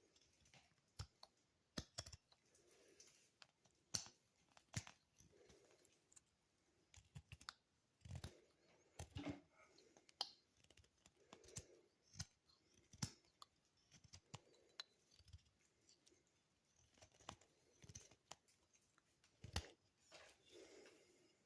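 Scattered sharp clicks and light rustling handling noises at irregular intervals, from a small knife being handled.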